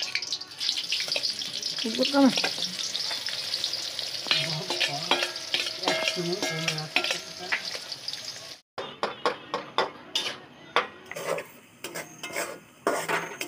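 Sliced onions sizzling as they drop into hot oil in an aluminium kadai, with a spoon scraping them out of a steel bowl. After a brief break about nine seconds in, a spatula stirs the frying onions, clicking and scraping against the pan.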